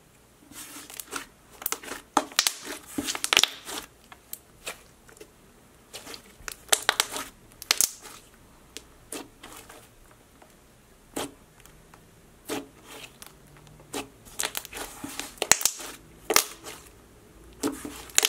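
A thick slime being stretched, folded and squeezed by hand, giving irregular sticky crackles and pops in quick clusters.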